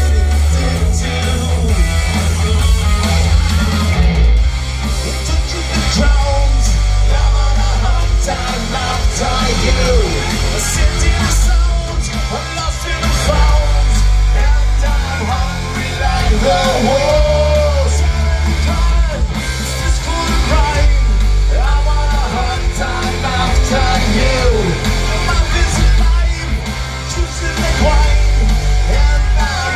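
Live rock band playing: electric guitars, bass guitar and drums, with a man singing lead through the PA. A strong bass line changes notes every second or two under the vocals.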